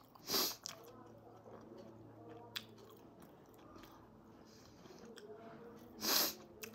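Close-up chewing of fried momo dumplings: soft wet mouth sounds and a faint click. Two short, loud breathy noises stand out, one just after the start and one near the end.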